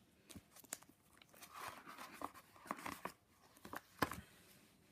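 Collaged paper pages of a thick ring-bound junk journal being handled and turned: soft paper rustling with scattered light taps and clicks.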